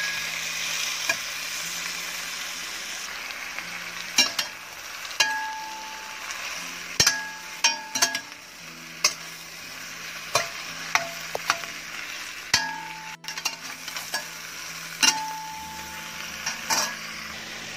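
Boiled lamb pieces with onion sizzling as they are sautéed in a stainless steel pan, with a steady frying hiss. A metal spoon stirs and scrapes through the meat, making irregular metallic clinks, some of which set the pan ringing briefly.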